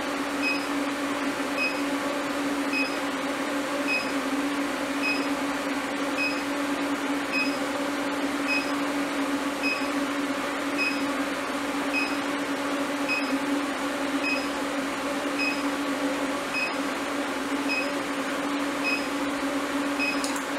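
Induction forge running while a steel piece in its work coil heats to red heat: a steady electrical hum with a hiss, and a short high beep repeating about once a second.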